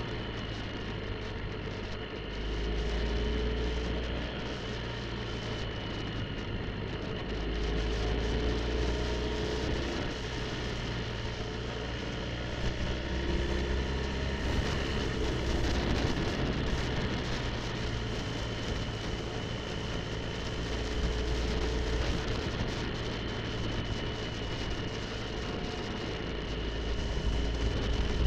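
BMW R 1250 GS Adventure's boxer twin engine running at road speed, the low engine note swelling and easing a few times with the throttle, under steady wind and tyre noise.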